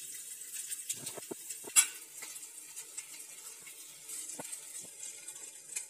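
Hot oil sizzling in a small pan of fried spices as pieces of boiled potato are crumbled into it by hand, with a few light knocks and one sharp clink a little under two seconds in.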